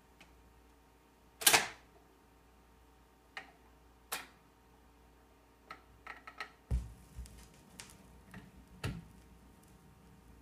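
Gradiente Garrard S95 automatic record changer running its change cycle: a sharp mechanical clack about a second and a half in, then scattered lighter clicks as the record drops from the spindle onto the platter and the tonearm swings over. From about seven seconds in come a few low thumps as the stylus sets down on the record.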